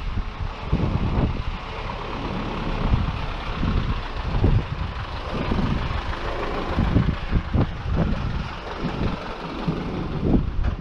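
Isuzu NPS truck's diesel engine running as the truck drives slowly past, with wind buffeting the microphone.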